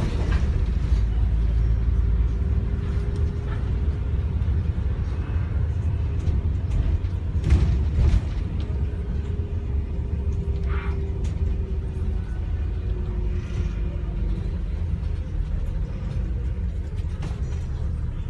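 London double-decker bus interior from the upper deck while under way: a steady low engine and road rumble, with a faint whine that comes and goes and drifts slightly in pitch. Two sharp knocks or rattles come about seven and a half and eight seconds in.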